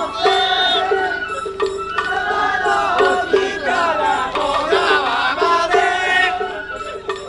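Japanese festival float hayashi music: a high bamboo flute melody over a steady drum beat of about two hits a second, with crowd voices mixed in.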